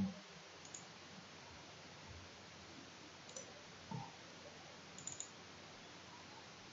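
Faint computer mouse clicks over quiet room tone: a few scattered single clicks, the loudest about four seconds in, and a quick double click about five seconds in.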